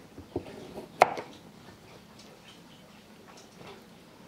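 Kitchen knife knocking on a wooden cutting board while working a carrot: a couple of light knocks, then one sharp knock about a second in, followed by faint scraping as the carrot is peeled with the knife.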